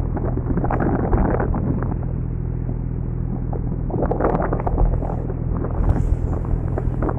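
Longline fishing boat's engine running steadily, with wind buffeting the microphone in gusts.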